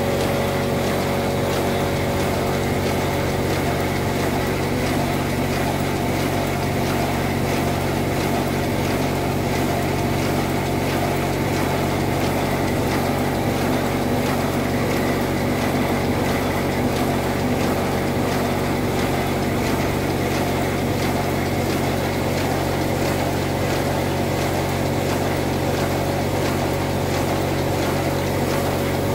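Chassis of a 7¼-inch gauge model of the DR class 41 steam locomotive driven by compressed air on a roller stand, its cylinders, coupling rods and driving wheels running at a steady speed. The sound holds level throughout, without any change in speed.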